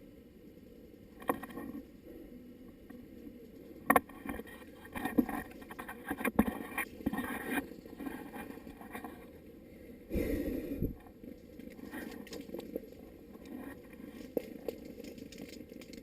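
Rustling and scraping in leafy undergrowth, with scattered sharp clicks and knocks and a louder burst of rustling about ten seconds in.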